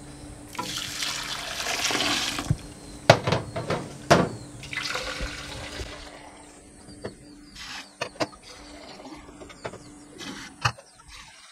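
Water poured from a jug into a stainless-steel pressure cooker holding rice, beans and grains, in two pours, one about a second in and one about five seconds in. Two sharp knocks sound between the pours, and faint clicks follow.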